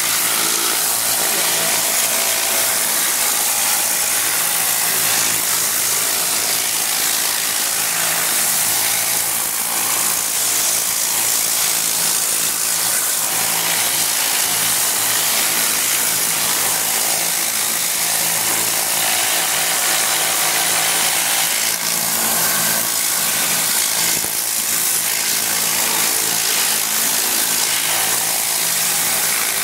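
Compressed air hissing steadily from a Tornador air-powered cleaning gun being worked over an engine bay, with a steady low hum underneath.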